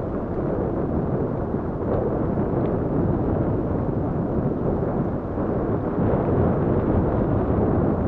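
Steady rumble of wind buffeting the microphone, mixed with mountain bike tyres rolling over a dirt and stony track while riding.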